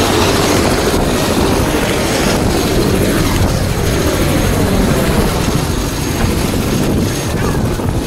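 Helicopter running on the helipad: a loud, steady rotor and engine noise.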